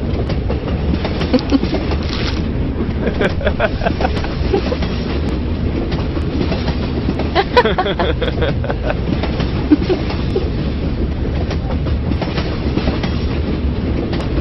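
Subway train running, heard from inside the passenger car: a steady low rumble with scattered clicks and rattles from the wheels and car body.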